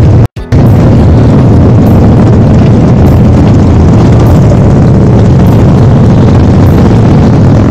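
Motorcycle on the move: loud, steady rush of wind over the microphone with engine rumble beneath, cutting out briefly about a third of a second in.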